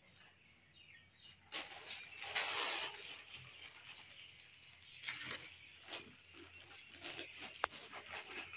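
Plastic wrapping and shopping bags rustling and crinkling as packed clothes are handled, in several bursts, the longest about two seconds in.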